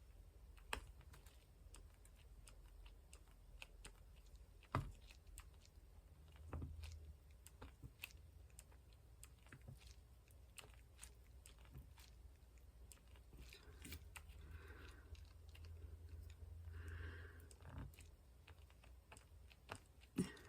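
Faint, irregular small clicks and taps: a diamond painting pen pressing square resin drills onto the adhesive canvas one after another.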